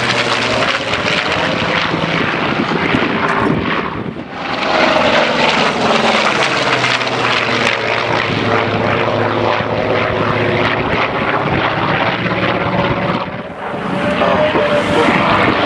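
Douglas A-1 Skyraider's Wright R-3350 radial engine and propeller running at display power in a low pass. Its pitch swings as the aircraft passes, and the level dips briefly about four and thirteen seconds in.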